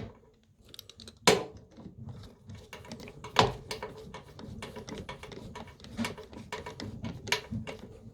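Irregular hard clicks and knocks of parts and tools being handled during a washing machine repair, with two louder knocks about a second in and a little after three seconds.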